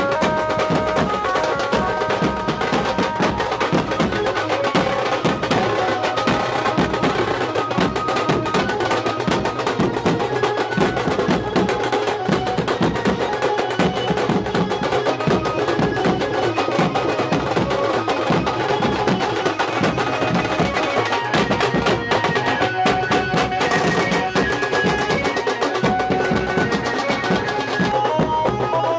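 Procession drumming: a group of large cylindrical bass drums beaten with padded mallets in a fast, continuous rhythm, with a pitched melody playing over the drums.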